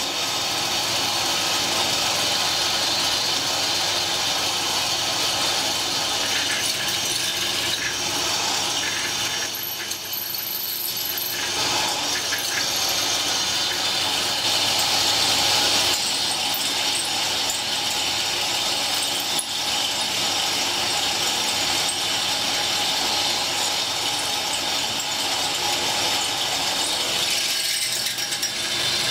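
Pillar drill running, its bit cutting down through two clamped metal pieces with a steady grinding chatter; the noise dips briefly about ten seconds in.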